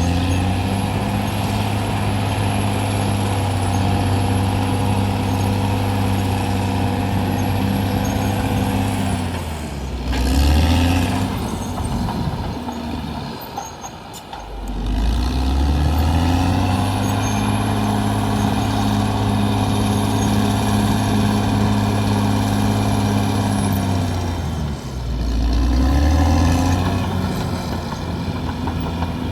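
CAT D6R XL bulldozer's diesel engine running steadily under working load, its speed sagging and picking back up twice, about ten and about twenty-five seconds in, with a brief drop in level near the middle. A faint high whine sounds while it holds speed.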